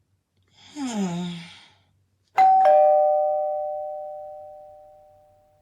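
A two-tone ding-dong doorbell rings about two and a half seconds in, the lower note following almost at once, and both notes fade slowly. Just before it there is a short vocal sound that falls in pitch.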